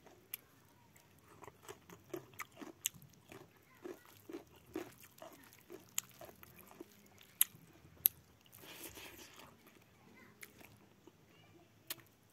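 A person chewing a mouthful of rice and pork close to the microphone, with wet mouth clicks and smacks scattered throughout and a steady chewing rhythm in the first half. A brief hissing stretch comes about two-thirds of the way through.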